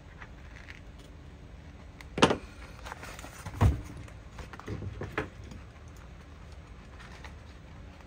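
Handling noises from cutting vinyl and contact paper at a craft table: two sharp knocks about two and three and a half seconds in, then a few lighter clicks around five seconds.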